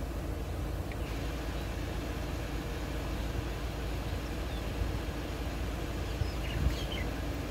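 Steady low outdoor rumble, with a few faint high chirps and a soft thump near the end.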